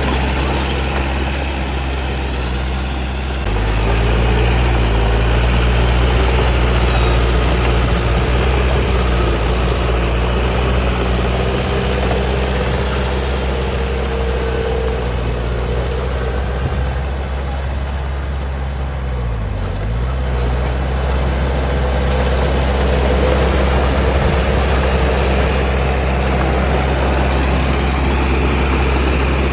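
Diesel engine of a Komatsu D31P crawler bulldozer running steadily under work. It revs up about three and a half seconds in, and its revs dip briefly and recover a little past the middle.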